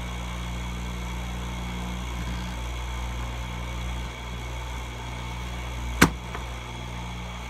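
Steady low hum of a running motor, with one sharp metallic click about six seconds in as the chainsaw grinder's swivelling chain vise is set to a new angle.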